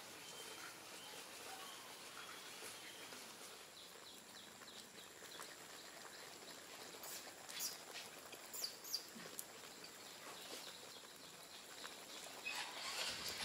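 Faint outdoor ambience with a few short, high-pitched animal calls, some about seven to nine seconds in and a louder cluster near the end.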